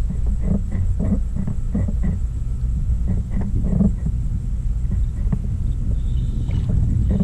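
Wind rumbling steadily on a GoPro's microphone, with water lapping against the kayak's hull in short knocks about twice a second.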